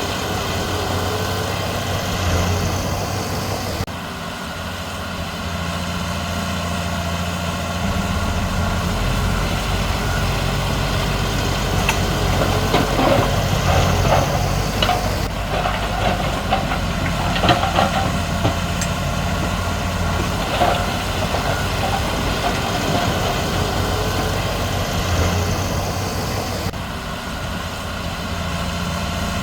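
Heavy diesel earthmoving machinery at work: a crawler bulldozer and dump trucks running steadily. The engine note deepens about eight seconds in, and short clanks and rattles come in the middle.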